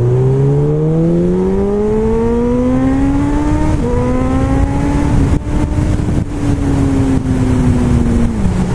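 Honda CB1000R's inline-four engine pulling hard. Its note rises steadily, drops sharply about four seconds in at a gear change, then holds and drops again near the end. Wind rushes over the microphone throughout.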